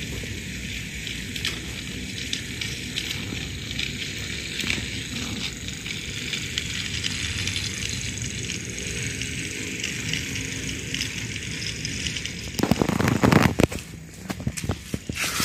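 Battery-powered toy train running on plastic track: a steady whirring rattle from its small motor and gears, with light clicks from the wheels, its batteries nearly drained. About twelve seconds in, louder scraping and rustling take over.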